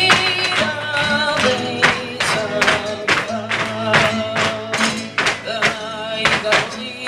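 Flamenco music through a loudspeaker: a held, slightly wavering singing voice over guitar, cut by frequent sharp percussive strikes.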